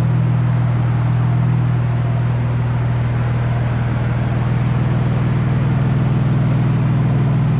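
Audi S4 B5's 2.7-litre twin-turbo V6 idling steadily, with a ridiculously loud exhaust. Some lifter noise is present, which the owner expects to go away once the engine is driven under load.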